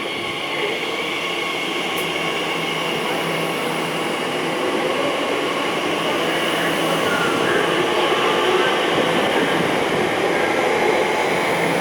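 Class 345 Aventra electric multiple unit pulling away from a station platform, its running noise growing steadily louder.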